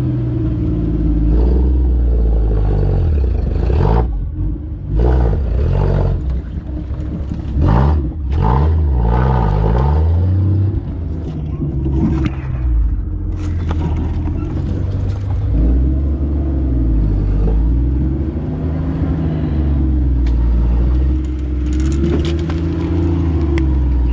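Jeep CJ5's engine running under load while crawling through a rocky creek bed, heard from inside the cab, its revs rising and falling again and again. Between about four and ten seconds in there are several sharp knocks and clunks.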